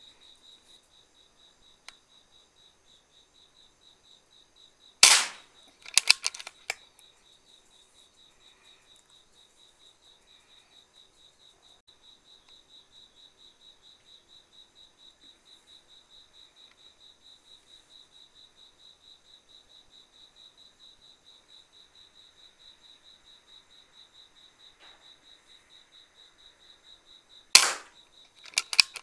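Two PCP air rifle shots, one about five seconds in and one near the end, each a sharp crack followed within a second by a few quick clicks. Under them runs the steady pulsing chirp of crickets.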